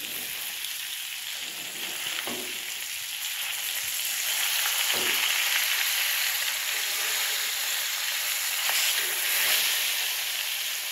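Whole pomfret shallow-frying in hot oil on a tawa: a steady sizzle that grows louder about four seconds in, as the fish is turned over onto its raw side. A couple of faint knocks come from the steel spoon against the pan.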